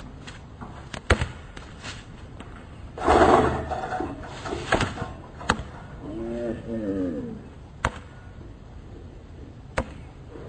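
A basketball player crashing onto a hard outdoor court after a failed dunk: a loud, noisy crash about three seconds in, then a short voice sound with rising and falling pitch. A basketball bounces on the court in sharp single smacks, twice near the end about two seconds apart.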